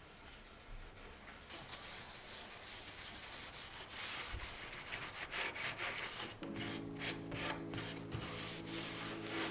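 Hand rubbing strokes on a wooden surface, a soft repeated scratchy sound that grows more distinct in the second half. Quiet background music comes in about two-thirds of the way through.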